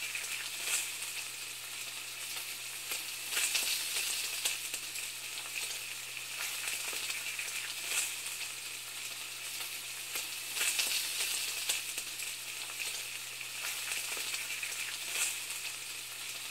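Steady sizzling hiss with irregular crackles and a few louder pops every few seconds, over a low steady hum.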